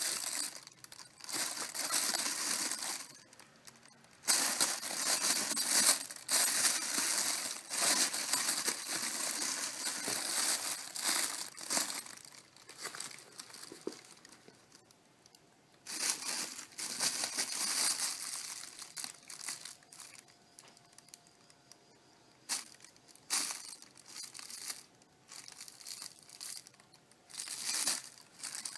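Thin clear plastic bag crinkling and rustling in irregular bursts as a kitten paws and bites at it, with quieter spells in between.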